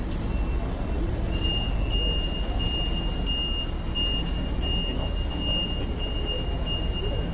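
STILL forklift running with a steady low rumble while its reverse warning beeper sounds over and over from about a second in, as it backs out from the trailer with a lifted pallet.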